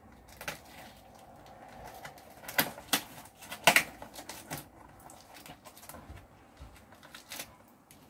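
Packing tape and cardboard of a shipping box being cut and pulled open: irregular clicks and crackles, the two sharpest about two and a half and nearly four seconds in.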